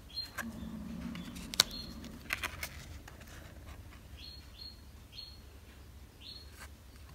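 Handling of a stiff playing card as one card is swapped for the next: a low rustle, one sharp click about a second and a half in, then a few softer taps. Short high chirps of a small bird come through several times.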